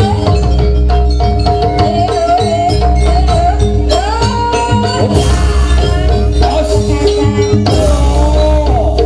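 Live jaranan gamelan ensemble playing: drums and gong under metal-keyed percussion, with a high melody line that holds and bends in pitch.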